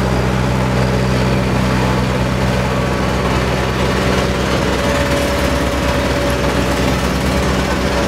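Diesel engine of a Volvo single-drum road roller running steadily as the roller drives slowly along the road.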